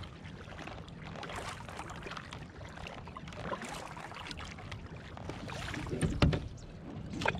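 Kayak paddle strokes dipping and splashing in calm water, then a loud thump about six seconds in as the double paddle is laid across the kayak.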